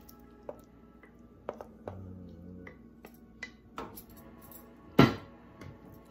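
Metal cookware and utensils clinking and knocking: several light taps, then one loud clank with a short ring about five seconds in.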